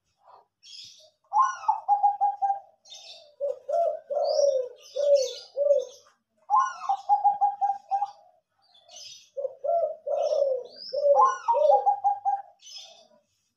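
Two caged doves cooing in a duet: a Bangkok-strain perkutut (zebra dove) and a derkuku (spotted dove). A fast stepped run of higher coos alternates with a slower series of deeper separate coos, the phrases repeating about four times and overlapping near the end. Short high chirps from small birds sound in between.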